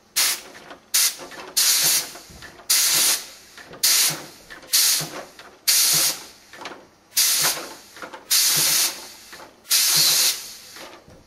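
Compressed air hissing in about ten short, sharp bursts, roughly one a second, as the pneumatic air suspension of a large Lego model car is pumped and vented, making the car body jump up and down.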